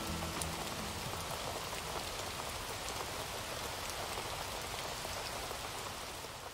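Rain: a steady hiss with scattered light ticks of drops, fading out near the end.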